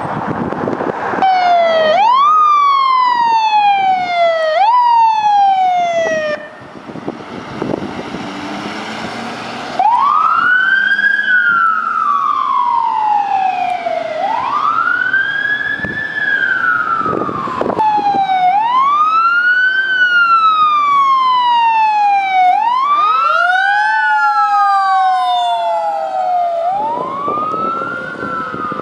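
Emergency vehicle wail sirens. Each sweep rises quickly and then falls slowly, repeating every two to four seconds. The first siren breaks off about six seconds in. After a few seconds of quieter road noise, a second siren starts wailing with longer sweeps, and near the end two sirens wail together out of step.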